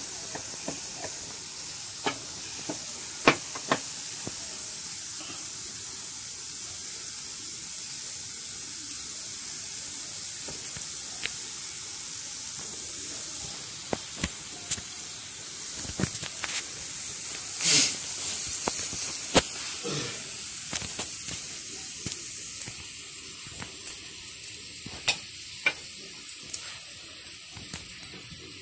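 Semolina dosa batter sizzling steadily on a hot non-stick tawa, with scattered clicks, taps and short scrapes of a wooden spatula as potato masala is spooned onto the dosa and spread.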